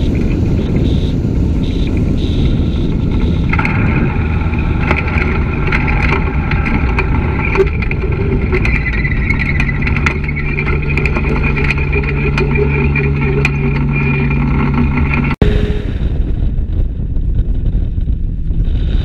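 Dragonfly ultralight's engine and pusher propeller running steadily, buried in heavy wind noise on a wing-strut-mounted microphone. About 15 seconds in, the sound breaks off abruptly and gives way to quieter wind noise.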